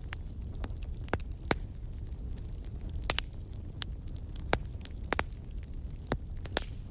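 Wood logs burning in a fireplace: about a dozen sharp, irregular crackles and pops over a steady low rumble of the fire.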